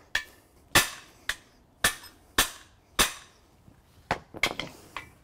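A hammer striking the end of a cam bearing removal tool's bar, six sharp metal blows about half a second apart, driving a cam bearing out of a Ford 302 V8 engine block. Near the end come a few lighter metallic clinks.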